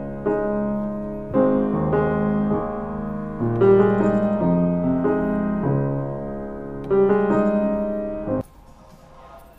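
Piano played in slow, sustained chords over a bass line, a new chord struck roughly every second. The playing cuts off abruptly near the end.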